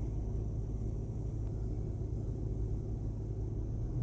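A vehicle engine running steadily, a low, even rumble.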